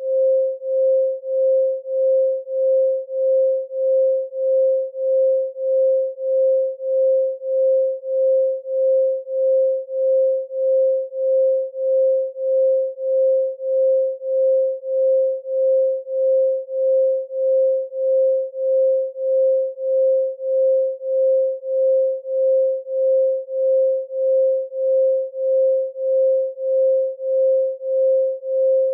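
A pure 528 Hz sine tone, held at one pitch and pulsing evenly in loudness about three times every two seconds.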